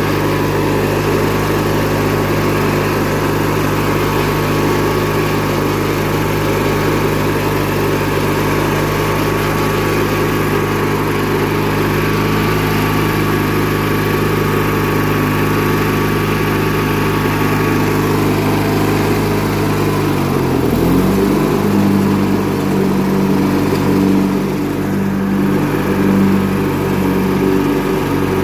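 Riding lawn tractor engine running steadily. About two-thirds of the way through, its pitch dips briefly and then settles into a new steady note.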